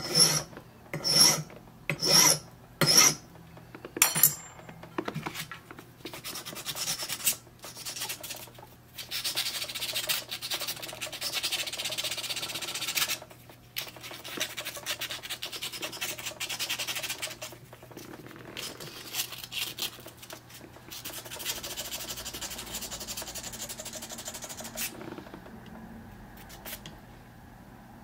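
Hand file rasping across a key blank in about five slow, separate strokes roughly a second apart, filing the cut for the fourth pin lower and flat while impressioning a key. Then a long stretch of quicker, quieter rubbing as the blank is smoothed on 400-grit wet/dry abrasive paper, which fades out near the end.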